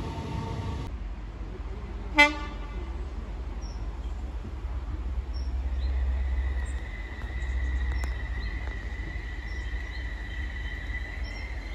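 Electric train's horn giving one short toot about two seconds in. Later a steady high-pitched whine sets in as a train approaches the platform, and birds chirp faintly.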